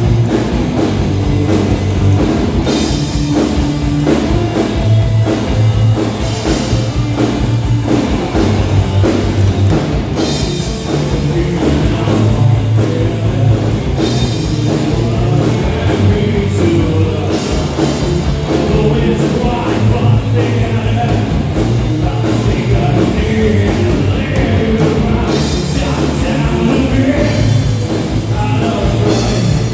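Live rock band playing loud: electric guitars over a drum kit.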